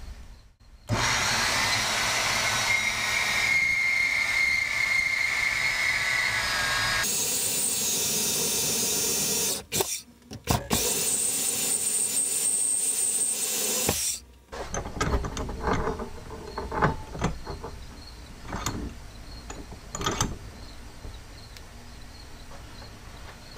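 Portable band saw cutting into a steel round bar clamped in a bench vise: the saw starts about a second in and runs steadily, its sound changing about seven seconds in, stops briefly near ten seconds, then runs again until about fourteen seconds and shuts off. After that come scattered knocks and clicks of the bar and vise being handled.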